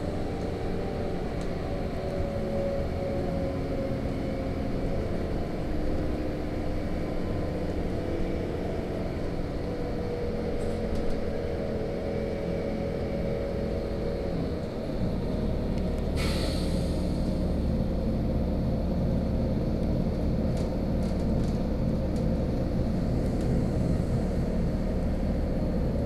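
Inside a LiAZ-5292.65 city bus under way: the engine and drivetrain run with a steady whine that slowly shifts in pitch over a low road rumble. The rumble grows a little louder about fifteen seconds in.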